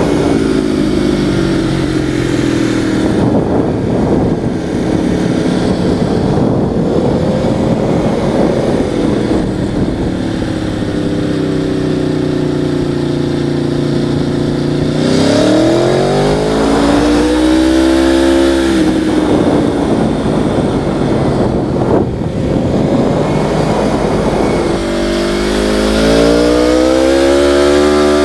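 Motorcycle engine under way, its pitch sinking and swelling with the throttle, then climbing steeply in revs about fifteen seconds in and again near the end, over a steady low rumble.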